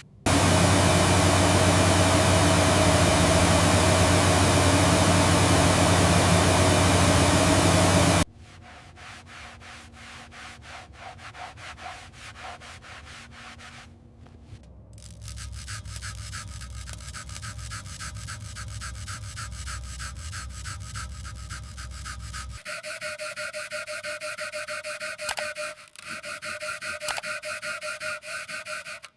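Restoration shop work: about eight seconds of loud, steady power-tool noise that cuts off suddenly, followed by quieter, fast, rhythmic rubbing and scraping strokes on a hard surface, as in sanding.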